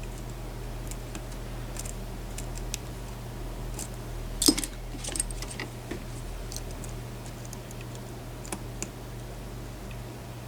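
Lock pick and tension wrench working a pin-tumbler challenge lock with spool pins: scattered small metallic clicks and taps as pins are set, the loudest cluster about halfway through, over a steady low hum.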